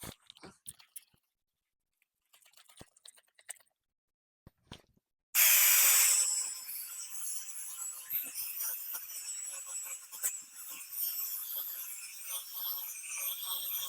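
A drill spinning a sanding disc from a headlight restoration kit, wet-sanding an oxidised plastic headlight lens. A few light clicks and handling noises, then the drill starts suddenly about five seconds in, loudest at the start, and settles into a steady whine with the scratchy rubbing of the pad on the lens.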